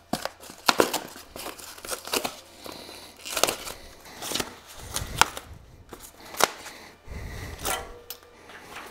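Packaging being stripped off a new e-bike: plastic and foam wrapping rustling and crinkling, broken by many sharp clicks and snaps as tie wraps and packing pieces come away.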